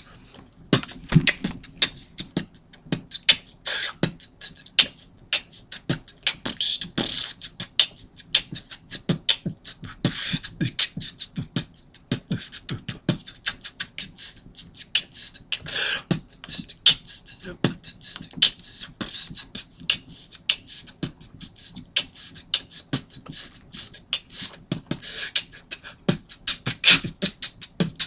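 A man beatboxing with his mouth: a fast, busy rhythm of sharp clicks, hissing hi-hat sounds and low kick thumps, starting about a second in.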